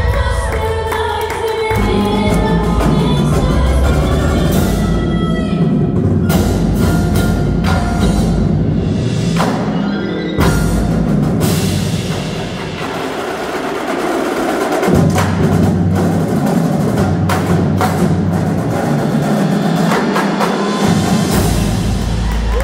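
Indoor percussion ensemble playing: mallet keyboards such as marimbas and vibraphones over drums and heavy sustained bass, with many sharp struck hits.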